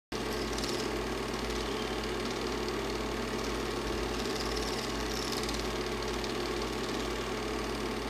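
Super 8 film projector running steadily, its motor and shutter making an even mechanical whirr.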